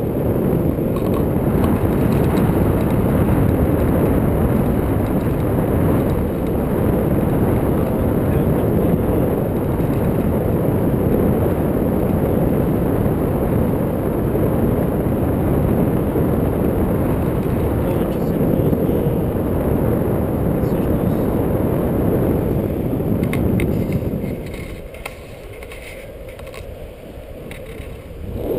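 Wind rushing over the camera microphone in paraglider flight, a steady low rumble that drops away for a few seconds near the end before returning, with a few light clicks in the quieter stretch.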